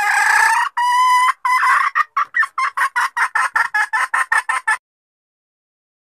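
Female red junglefowl calling: a long, loud rising note and a second shorter one, then a fast run of short clucks, about six a second, that breaks off near the end. This is the hen's call that lure hunters play to draw wild males, here as a hen calling for a mate.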